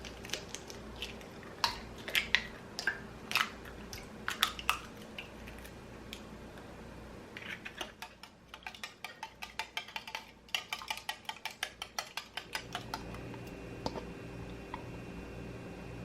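Kitchen clatter: utensils and dishes clinking in scattered knocks, then a quick, even run of clicks for about five seconds, then a steady low hum sets in near the end.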